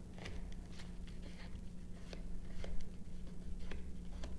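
Scattered light clicks and rustles of cardstock being handled and pressed down as a small paper pocket is glued in place, over a steady low hum.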